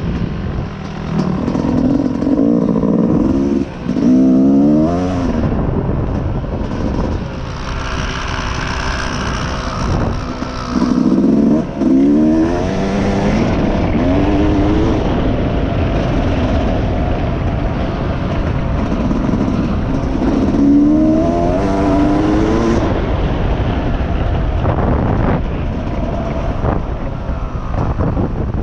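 Dirt bike engine revving hard, its pitch climbing and dropping again and again as it accelerates and shifts through the gears, with a steady rush of noise underneath.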